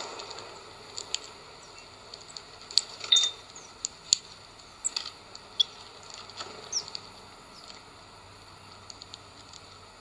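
Birds pecking at sunflower seeds on a feeder tray: scattered light clicks and taps, thinning out after about seven seconds, with a few faint short high bird calls.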